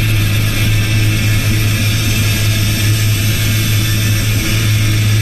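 1984 Peterbilt diesel truck at highway cruise, heard inside the cab: a steady low engine drone over road and wind noise.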